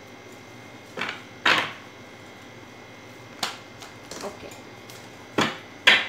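Tarot cards being shuffled by hand and laid down on a wooden table: a string of short card swishes and slaps, loudest about a second and a half in and again just before the end.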